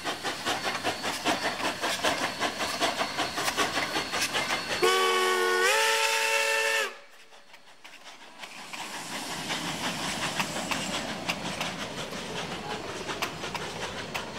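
Double-headed K-37 and K-36 Mikado steam locomotives working hard, with rapid exhaust beats. About five seconds in, a steam whistle of several notes sounding together blows for about two seconds, stepping up in pitch partway, then cuts off suddenly. The quieter running noise of the passing train builds again after it.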